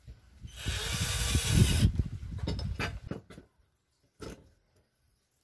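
Cordless drill-driver running for about a second and a half, driving a screw through a concealed hinge into a cabinet door panel and stopping short of fully tight. A few light clicks follow, and a single knock near the end.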